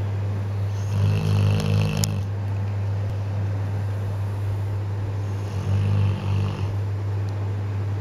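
Bullmastiff puppy snoring in its sleep: two long snores, one about a second in and another about five and a half seconds in, over a steady low hum.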